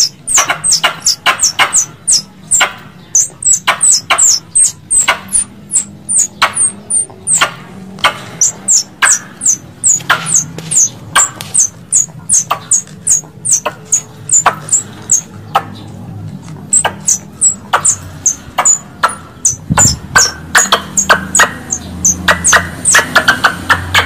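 Tree squirrel calling: a long run of short, sharp, high chirps, each dropping quickly in pitch, about three a second.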